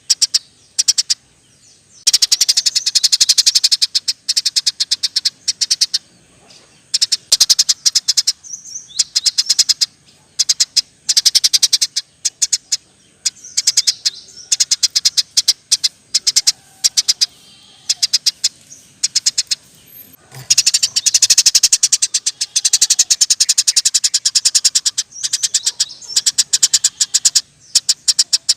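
Eurasian tree sparrow chirping vigorously in fast rolling runs of sharp chirps, coming in bursts of a few seconds with short pauses between.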